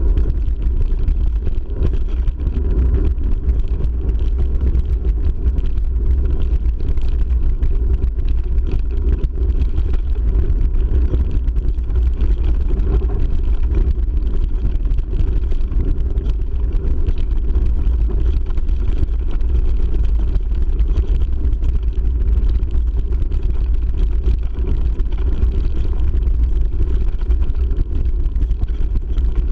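Mountain bike rolling fast down a rough gravel track, heard from a mounted action camera: a steady low rumble of wind buffeting the microphone and tyres on gravel, with constant small knocks and rattles from the bike over the stones.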